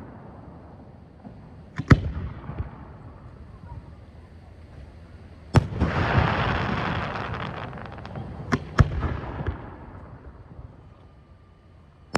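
Fireworks shells bursting overhead. One bang comes about two seconds in, and a louder one near the middle trails off over several seconds. Then two bangs follow in quick succession.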